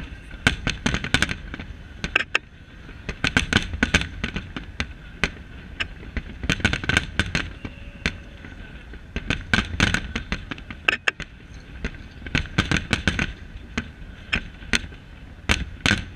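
Aerial fireworks shells bursting in rapid volleys: clusters of sharp bangs every few seconds over a steady low rumble.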